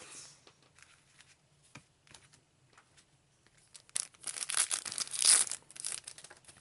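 A trading card booster pack's foil wrapper being torn open and crinkled: a brief rustle at the start, then a louder stretch of tearing and crinkling about four seconds in.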